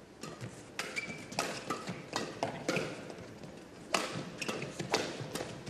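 Badminton doubles rally: a quick, irregular run of sharp racket hits on the shuttlecock, mixed with players' footfalls and brief shoe squeaks on the court.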